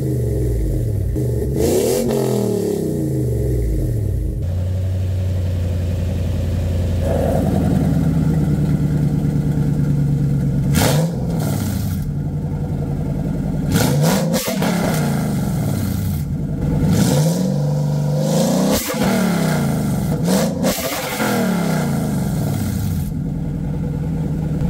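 A 2006 Toyota Sequoia's 4.7-litre V8 running through a new aftermarket exhaust with short-tube headers, a muffler and electric exhaust cutouts. It is revved twice near the start, settles into a steady idle for several seconds, then is blipped four or five more times, each rev rising and falling quickly.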